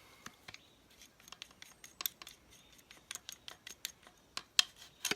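Metal parts of a folding entrenching shovel clicking and clinking as it is handled, with irregular sharp ticks, the loudest about four and a half seconds in.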